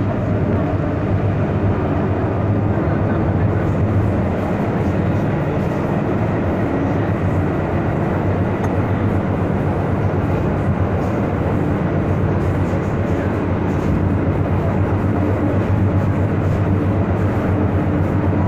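Inside an MTR M-Train metro car running at steady speed through the tunnel: a continuous rumble of wheels on rail and running gear with a steady low hum.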